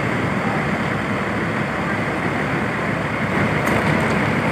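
Steady rumble of road traffic with wind noise on the microphone; no horn tune sounds.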